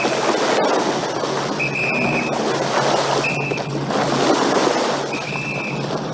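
Short, high whistle blasts, three of them about a second and a half apart, sounding over a steady rushing noise. They are drill whistle signals: one blast means drop down, two mean get up and advance.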